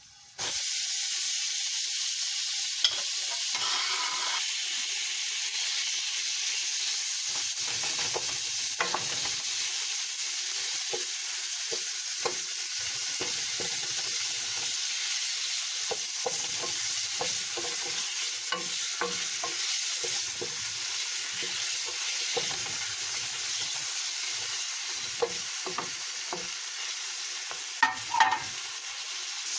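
Cubed raw pork frying in hot oil with chopped garlic: a steady sizzle that starts suddenly as the meat hits the pan, with a utensil scraping and tapping against the pan as the meat is stirred.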